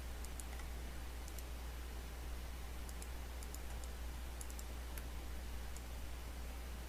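Faint, scattered clicks of a computer mouse, often in quick pairs, over a steady low hum and hiss.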